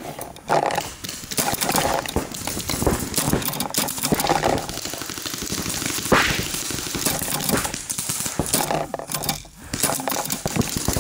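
Paintball markers firing across the field: many short, sharp pops in irregular rapid runs, without letting up.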